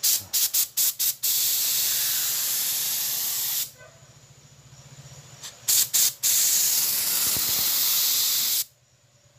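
Pearl white spray paint hissing from the nozzle: several short puffs, then a steady spray for about two seconds; after a short pause, three more puffs and another steady spray that cuts off sharply near the end.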